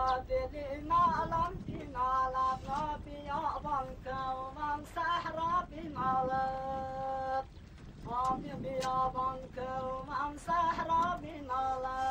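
A single high voice singing a melody in short phrases, some ending in long held notes.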